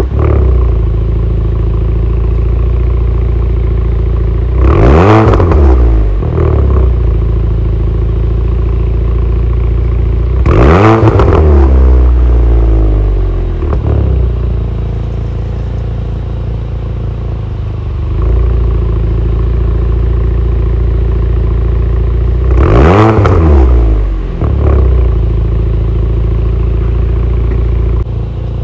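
Proton Suprima S's turbocharged 1.6-litre CamPro CFE four-cylinder idling steadily through its twin-tip exhaust, revved three times while the car stands still: each rev rises and falls back to idle in about a second and a half.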